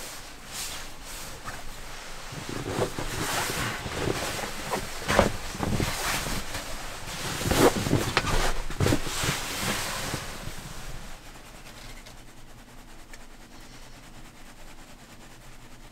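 Synthetic sleeping-bag and bedding fabric rustling and swishing as it is pushed and bundled about, with a couple of louder swishes, dying away about eleven seconds in.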